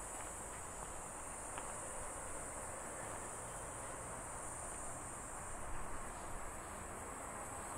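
Cicadas in the trees and shrubs giving a steady, high-pitched drone over a low background rumble.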